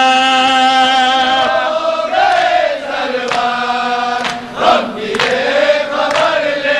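Men singing an Urdu noha: the lead reciter holds a long note, then the voices carry on in a slow, gliding chant. In the second half sharp slaps come about once a second, the chest-beating (matam) of mourners.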